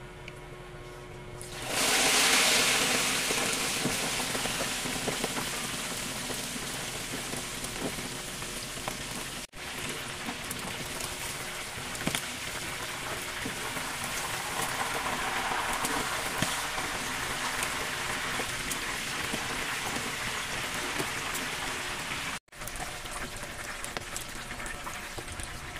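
Chicken deep-frying in hot oil in a pan. About two seconds in the sizzle jumps suddenly loud as the chicken goes into the oil, then it carries on as a steady, rain-like sizzle with crackling.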